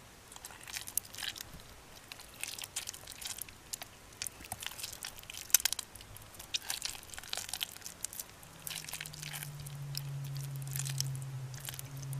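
Hands squeezing and kneading waterlogged bar soap in a tray of foamy water: irregular wet squishing and crackling of the mush and lather. A low steady hum comes in about two-thirds of the way through.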